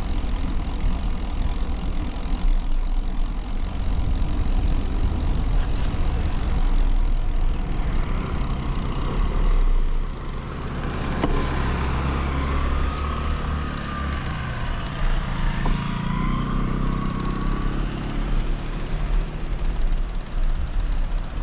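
Wind buffeting the microphone of a handlebar-mounted action camera on a moving bicycle, a steady low rumble with no wind reduction applied. From about halfway to near the end a wavering whine and a deeper rumble join it.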